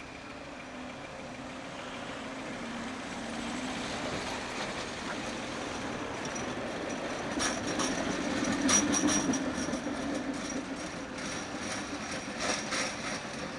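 Tatra T4D tram with a B4D trailer passing close by on a curve: a low motor hum that grows louder, then from about halfway a run of wheel clicks and knocks on the rails with a faint high wheel squeal, loudest about two-thirds of the way through.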